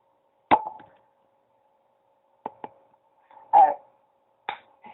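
A few short, sharp knocks and taps at uneven intervals, one of them a quick double tap about two and a half seconds in, over a faint steady hum.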